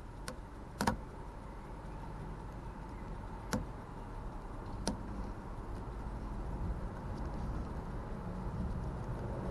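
Four small, sharp metal clicks from a lock pick tool being worked inside a car door lock, spread over the first five seconds, the second a quick double click, over a steady low hum.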